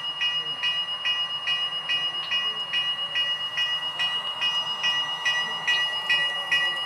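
HO-scale model train running, with a bell ringing over it, struck a little over twice a second in a steady rhythm.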